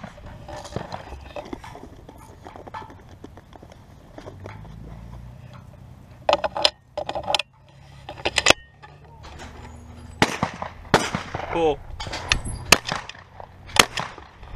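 Sharp clicks and knocks at uneven intervals, with voices in the background, from a skeet shooter handling a shotgun between targets.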